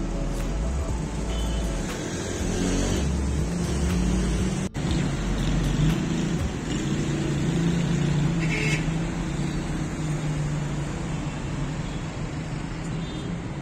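Steady city road traffic: car engines humming and tyres on a busy road, with a momentary dropout about a third of the way through.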